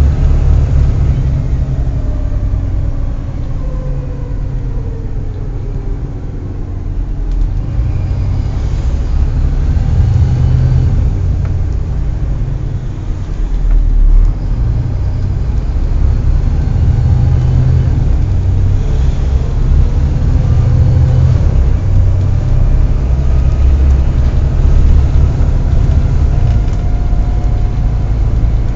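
Volvo B7TL double-decker bus running with a heavy low rumble, and a fainter whine that falls in pitch a few seconds in and rises again later.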